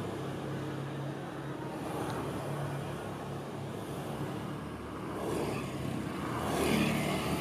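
A motor scooter's small engine running as it comes along the street and passes close by. It grows loudest near the end, over a steady engine hum of light traffic.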